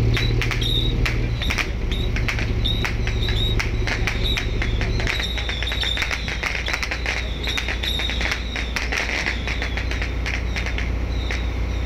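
Fishing boat's engine droning low and steady, its note dropping about five seconds in, under many sharp crackling clicks and short high chirps.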